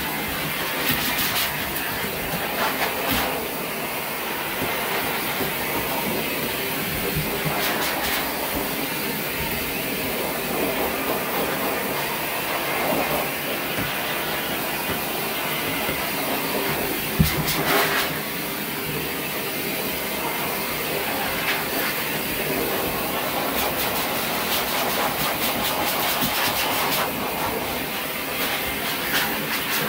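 Dog-grooming high-velocity dryer blowing air through its hose and nozzle over a small dog's coat: a steady, loud rushing hiss. A brief knock partway through.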